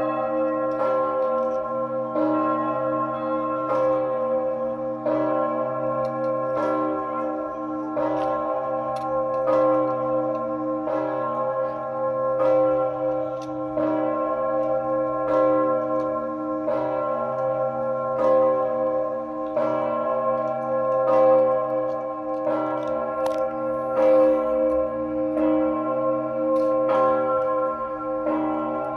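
The great church bell Augustin, the third-largest bell in the Czech Republic, swinging and tolling: its clapper strikes about every one and a half seconds over a continuous, deep ringing hum.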